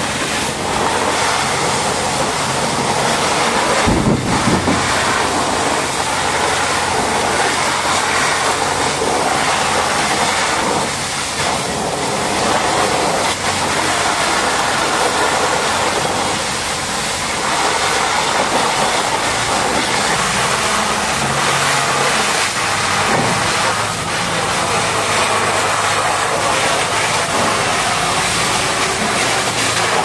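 High-pressure water jet spraying onto a Caterpillar 992K wheel loader's steel bucket and tyres: a loud, steady rushing hiss of water, with a low machine hum underneath and a brief low thump about four seconds in.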